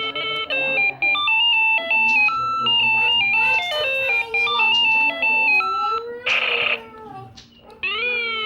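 Electronic sound effects from a toy steering wheel: a tune of stepped electronic notes, a short burst of hiss about six seconds in, then a siren sound that rises and falls starting near the end.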